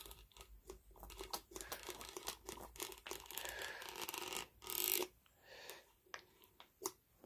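Hand cleaning work on a drill-press vice: irregular scraping and rubbing for about four and a half seconds, then a short burst of hiss about five seconds in, followed by a few faint clicks.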